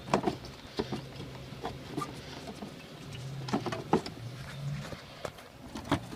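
Scattered clicks and light knocks of metal and plastic parts being handled as a window air conditioner's coil is worked loose, over a steady low hum.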